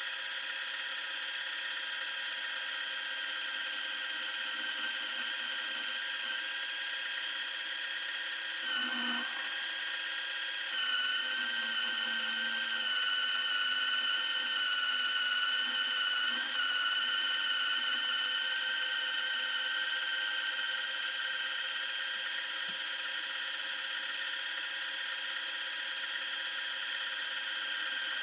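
Small micro lathe's electric motor running with a steady high-pitched whine. Its pitch dips briefly about a third of the way in, and it runs a little louder for several seconds after.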